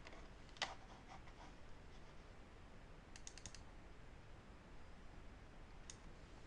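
Near silence with faint clicks: one sharp click about half a second in, a quick run of about five ticks near the middle, and one more click near the end.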